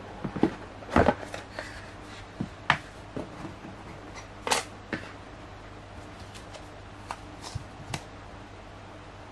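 Cardboard tablet box being handled and opened: the lid slid off and set down, then the tablet in its paper sleeve lifted out. This makes a scattered series of sharp taps, scrapes and brief rustles, the loudest about a second in, over a faint steady low hum.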